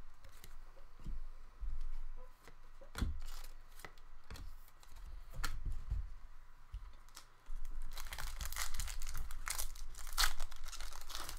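A few separate light clicks, then about seven and a half seconds in a hockey card pack's foil wrapper is torn open and crinkled, a dense crackling that runs on to the end.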